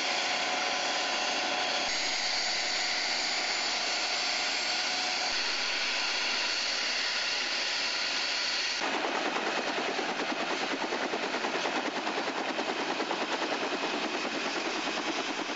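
Helicopter turbine engine running with a steady high whine. About nine seconds in the sound changes to a rapid, even pulsing chop of turning rotor blades.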